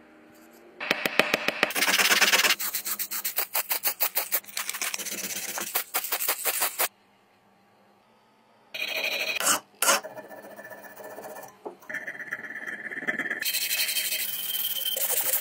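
Small metal parts rubbed by hand with an abrasive in rapid back-and-forth strokes, with a pause of about two seconds in the middle. Near the end, a blue abrasive stick rubs a knurled brass part held in a vise.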